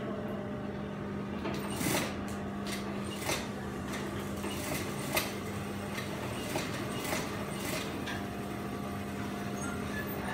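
Steady electric hum of an industrial sewing machine motor running without a sustained stitching run. Irregular sharp clicks and taps are scattered through it as the garment is worked under the presser foot.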